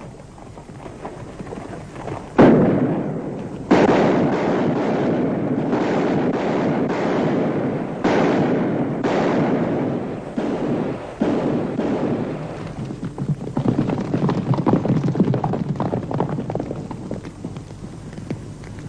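Gunfire from several guns in a shootout: many shots overlapping into a dense, echoing barrage. There are sharp loud onsets about two and a half and four seconds in, and further bursts later.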